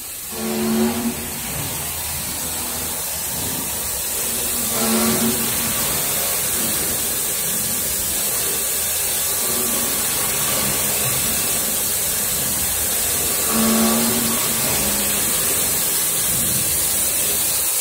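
Five-axis CNC drilling machine running over an aircraft wing skin panel: a steady mechanical hiss, with a short pitched hum that comes back four times, several seconds apart.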